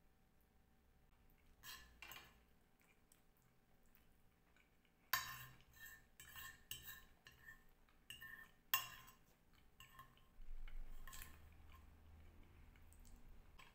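Metal fork and knife clinking and scraping against a ceramic plate: a couple of soft clicks, then from about five seconds in a run of sharper clinks as the last scraps of food are gathered up.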